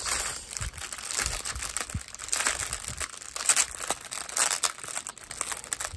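Clear plastic bag crinkling unevenly as hands squeeze and pull at it, a sealed bag of diamond-painting drill packets being handled.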